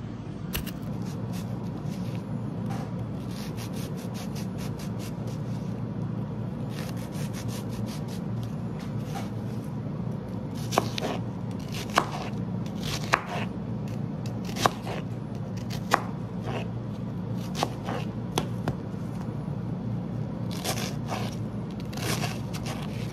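Kitchen knife dicing vegetables on a cutting board: a run of quick, light taps, with heavier separate chops about every second or so in the second half.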